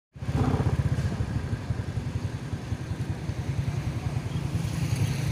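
Steady low rumble of road vehicles, engines running close by, with a restless, fluttering low end.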